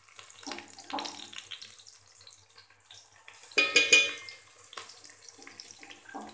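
Oil sizzling around fried onions and a ginger-garlic-green-chilli paste in an aluminium pot, with a metal spoon clinking and scraping against the pot. A louder pitched, ringing sound stands out about four seconds in, and a smaller one about a second in.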